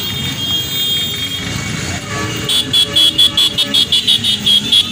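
Motorcycle engines running, then about two and a half seconds in a vehicle's electronic horn starts beeping rapidly and loudly, about five high beeps a second.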